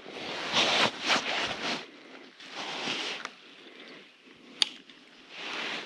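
Rustling and handling noises as a small fish is unhooked by hand. Uneven swishes come in the first half, and there is one sharp click a little after halfway.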